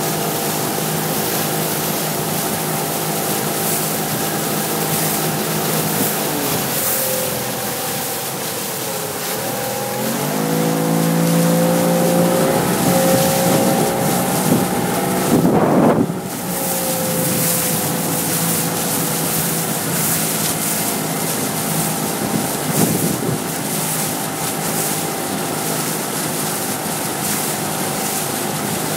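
Outboard motor of a motorboat running alongside at speed, its note sagging and then rising sharply about a third of the way in. Wind buffets the microphone and water rushes past, with a brief loud rush of noise about halfway through.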